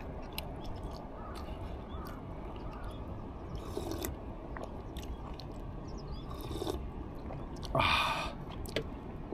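A person chewing food close to the microphone, with scattered small clicks and a brief louder noise about eight seconds in.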